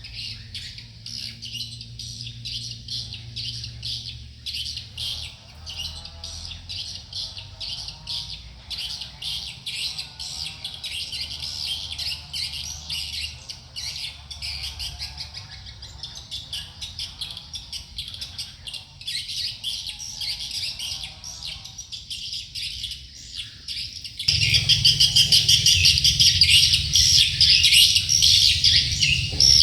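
Sogok ontong bird chirping rapidly and continuously in high, twittering calls. About 24 seconds in, the chirping gets suddenly louder and denser.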